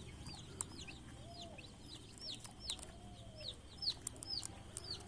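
Chicks peeping in short, high, falling chirps, several a second, with a few low, drawn-out clucks from a hen.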